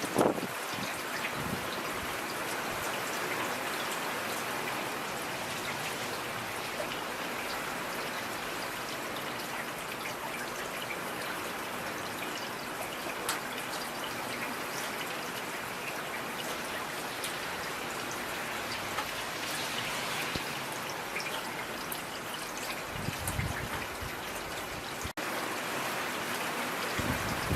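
Steady rain falling, an even hiss of drops, with a brief low rumble at the very start and another near the end.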